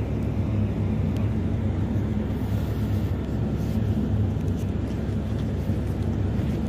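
Steady low hum of a ship's engines and machinery, an even drone without change.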